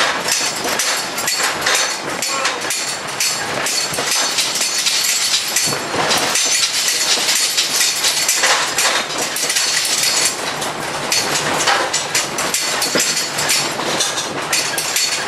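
A trailer-built tiny house being towed on the road, its walls and loose contents rattling and clattering with rapid, irregular knocks throughout.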